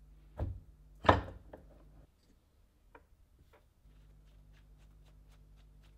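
Two sharp knocks, about half a second apart, over a low steady hum that cuts off after about two seconds. Then faint, irregular ticking as a metal knob is threaded onto a screw rod set in a wooden block.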